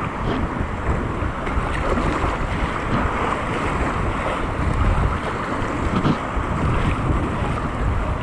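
Whitewater river rushing steadily around an inflatable kayak, with kayak-paddle strokes splashing in the current and wind buffeting the microphone as a low rumble.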